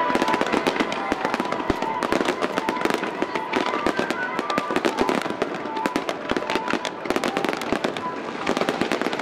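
Aerial firework shells bursting in rapid succession, a dense, unbroken stream of bangs and crackles.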